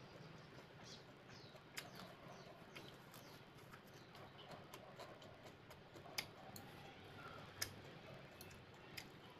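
Quiet eating sounds: metal chopsticks clicking sharply against the dishes a few times, the loudest about six and seven and a half seconds in, with faint chewing between.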